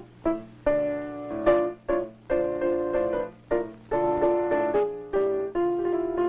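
Piano music playing short, detached chords in a bouncy rhythm, each group of notes struck and quickly dying away.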